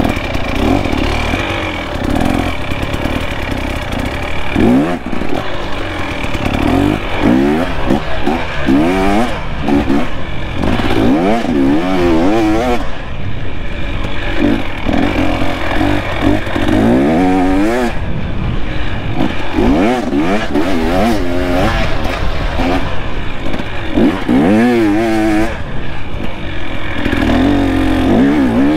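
Dirt bike engine being ridden, its revs rising and falling again and again with throttle and gear changes.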